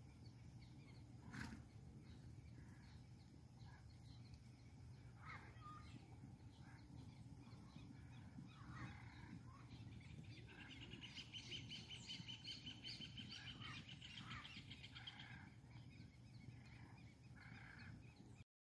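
Faint open-country evening ambience: scattered bird calls, with a rapid high trill for about four seconds midway, over a low steady hum. The sound cuts off suddenly near the end.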